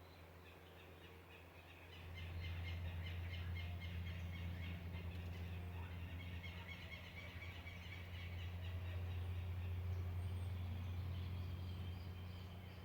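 Birds calling with rapid, repeated chattering notes over a low, steady hum like a distant engine, which swells about two seconds in and eases off near the end.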